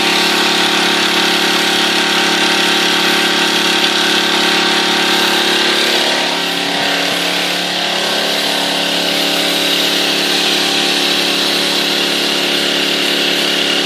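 Pressure washer's engine running steadily under a constant high hiss, dipping slightly in level about seven seconds in.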